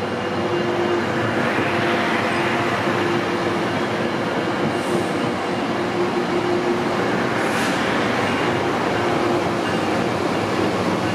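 Metrolink bilevel passenger cars rolling past along the platform: a continuous rumble of wheels on rail with a steady hum underneath, swelling softly a couple of times as trucks go by.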